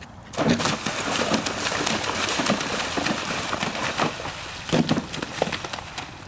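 A horse landing in a water jump and galloping through shallow water: loud, continuous splashing of hooves and spray that starts suddenly about a third of a second in and fades near the end.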